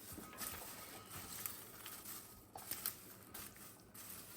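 Faint rustling and a few light clicks as popcorn is stirred in a bowl with a spatula.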